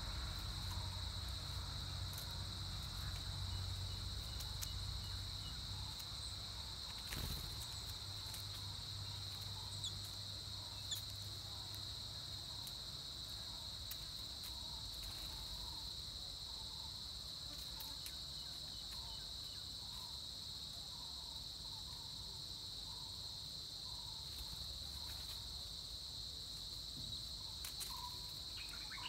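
Steady high-pitched drone of an insect chorus in the forest, with faint short chirps repeating through the second half.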